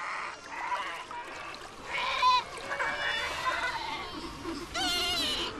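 Fur seal pups calling in a crowded rookery: several high, wavering, bleat-like cries, one after another.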